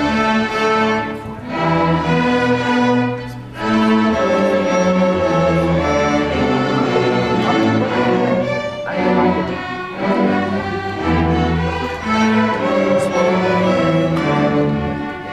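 School orchestra's string section playing: violins and cellos in sustained notes that change about every second.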